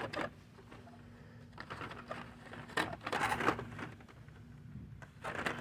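Cardboard-and-plastic blister packs of die-cast toy cars rustling and clicking as they are flipped through on a peg hook, with a busier burst of rattling about three seconds in.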